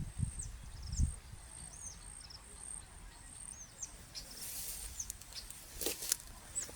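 Insects trilling in a thin, high, steady tone that stops and starts, with a small bird giving short, repeated chirps that sweep in pitch. A few low bumps near the start, and a brief rise of high hiss with some clicks in the second half.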